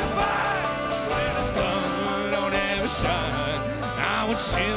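Bluegrass band playing live: banjo, acoustic guitar, mandolin and upright bass playing together.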